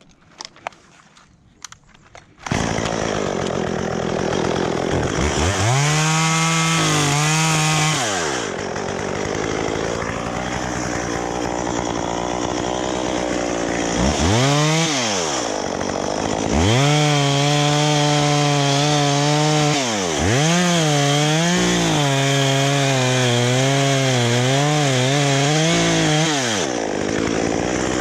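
Two-stroke chainsaw running, coming in suddenly a couple of seconds in. It is revved up and let down again and again, its pitch rising and falling, with longer steady stretches as it cuts into eucalyptus wood.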